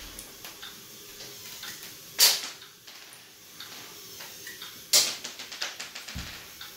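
LEGO Mindstorms EV3 robot on a wooden floor, its plastic parts clicking and rattling, with two loud, sharp clacks about three seconds apart. A quick run of small ticks follows the second clack.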